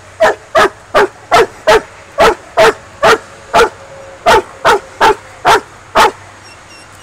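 Coon dog barking steadily at a raccoon in a wire cage trap, about fourteen loud, evenly spaced barks two to three a second, stopping about a second before the end.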